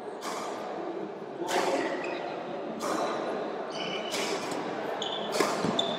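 Badminton rally: a shuttlecock struck by rackets about five times, a sharp hit every second or so, echoing in a large hall. High shoe squeaks on the court surface come between the later hits.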